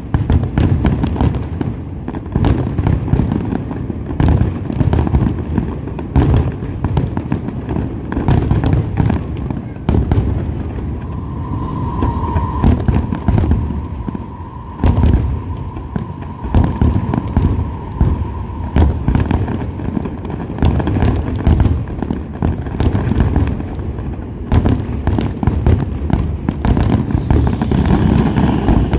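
Aerial fireworks going off in a dense, continuous barrage of sharp bangs and crackles. A faint steady high tone sounds through the middle.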